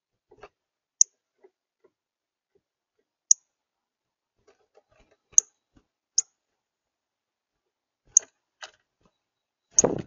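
Male northern cardinal at a seed feeder making sharp, high, very short clicks every one to two seconds, then a louder rustling thump just before the end as it moves up close over the tray.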